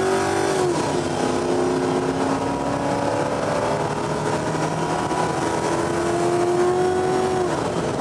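Car engine accelerating, its pitch climbing slowly and dropping off twice, about a second in and near the end, over steady road and engine noise.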